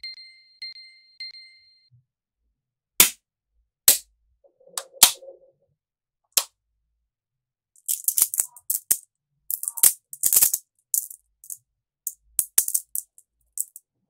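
Small magnetic metal balls clicking and snapping together as they are handled: a few sharp single clicks about a second apart, then a dense run of rapid clicks in the second half. A short ringing chime sounds three times at the very start.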